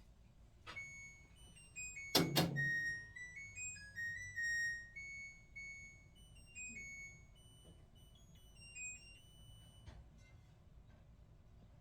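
LG Black Label Plus T16MU top-loading washing machine playing its electronic beep tune, a run of short stepping notes lasting several seconds. A loud double thunk comes about two seconds in, with fainter clicks near the start and near the end.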